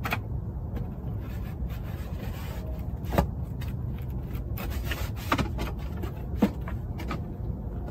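Interlocking wooden panels of a shooting table scraping and knocking against each other as they are fitted together by hand, with a few sharp knocks, the loudest about three seconds in. A steady low rumble runs underneath.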